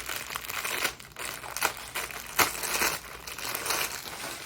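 Plastic packaging crinkling and rustling as it is handled, with irregular crackles and a sharper one about two and a half seconds in.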